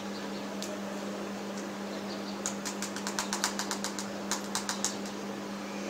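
A quick run of sharp clicks, about eight to ten a second, starting about two and a half seconds in, pausing briefly and ending with four more. A steady low hum runs under them.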